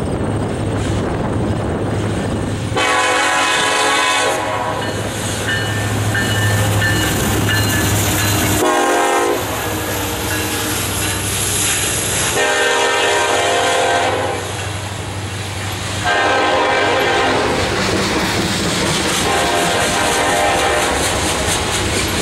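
Diesel freight locomotives running as they pass, their air horn sounding several blasts, one of them short, warning at a level crossing. Loaded coal hopper cars follow with wheels clacking on the rails.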